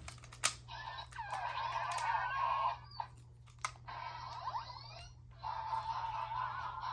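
Yo-kai Watch toy playing a Yo-kai's sound clip through its small speaker, thin and tinny, in three stretches with short breaks, after a sharp click about half a second in.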